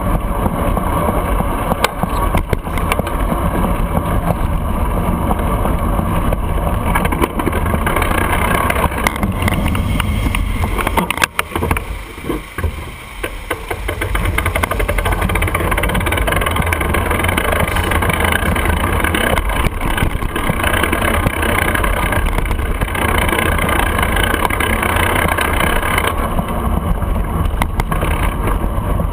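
Wind rushing over the microphone of a bicycle-mounted camera, mixed with tyre and city traffic noise from riding along the street. It eases for a few seconds about eleven seconds in.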